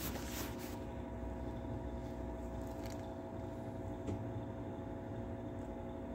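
A steady hum made of several fixed tones over a low rumble, with a short rustle near the start and a single click about four seconds in.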